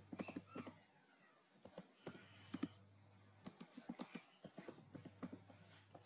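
Computer keyboard typing: faint, quick runs of keystroke clicks, with short pauses between runs, as a user name and password are entered.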